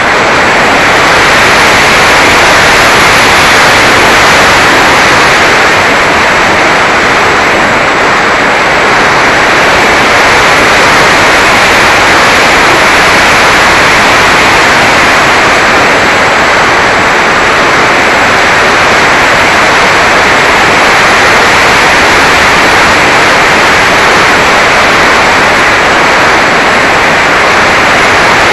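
Loud, steady rush of wind and motor noise picked up by a Mobius action camera mounted on a Mini Talon RC plane in flight.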